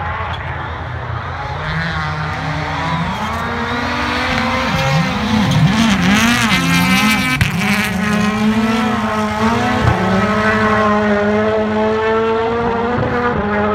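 Rally car engines revving hard, climbing and dropping in pitch with gear changes. About halfway through, as a car passes close, the note wobbles rapidly up and down and is at its loudest, then it holds a steady high pitch near the end.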